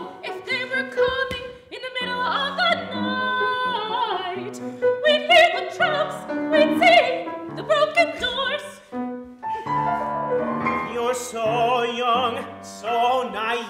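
Opera singers singing with piano accompaniment, the voices in phrases with wide vibrato over held piano chords.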